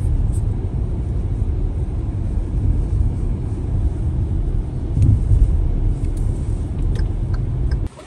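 Steady low rumble of road and engine noise inside a moving car's cabin; it stops abruptly just before the end.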